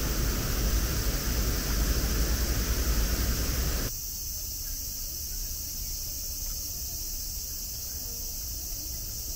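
A steady rushing noise with a deep rumble for about four seconds, then an abrupt change to quieter surroundings filled with the steady, high-pitched song of insects.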